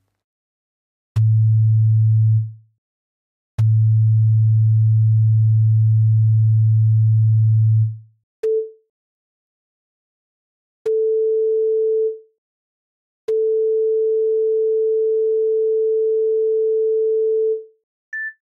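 Synthesized pure sine tones in a short, medium, long duration pattern, repeated at the same note in higher and higher octaves. A low medium tone and a long tone come first. Then a higher brief, medium and long tone, and near the end a brief tone higher still. Each tone starts with a small click and fades out quickly.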